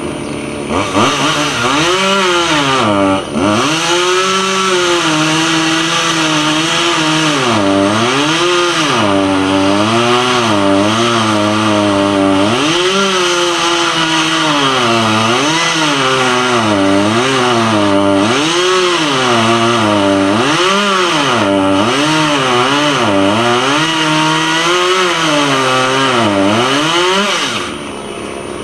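Chainsaw running at full throttle, its engine note repeatedly sagging and recovering, as when the chain is loaded in a cut. It comes in loud about a second in and falls away near the end.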